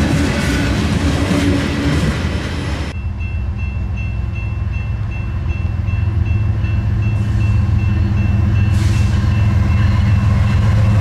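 Freight train's covered hopper cars rolling past close by with a clatter of wheels on rail joints. About three seconds in, this gives way to an approaching BNSF diesel locomotive, its engine a steady low drone that grows louder. Over the drone a thin high ringing note repeats about twice a second.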